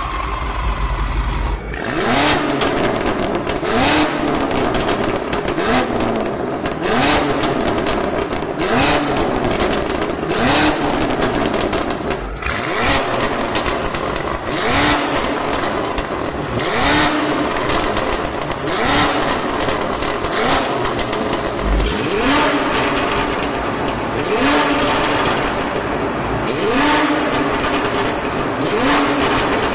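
BMW M8 Competition's twin-turbo V8 through an Akrapovic exhaust, revved in short blips, about one every two seconds after a brief steady stretch at the start.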